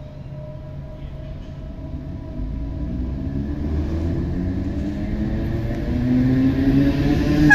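Irish Rail 8100-class DART electric train running in along the platform, growing steadily louder as it approaches, with a low rumble and a motor whine that climbs in pitch.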